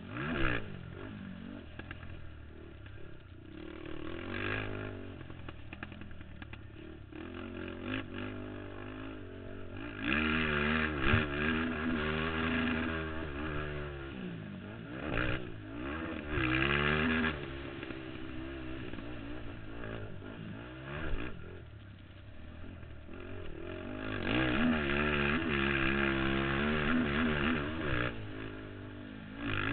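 Racing ATV engine revving hard and falling off again and again as the rider accelerates and lets off the throttle, with a few sharp knocks and clatter, heard from a camera mounted on the quad.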